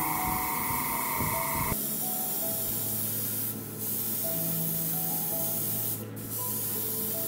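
Airbrush hissing as it sprays paint onto a small plastic model-kit part, with the air cut off briefly twice.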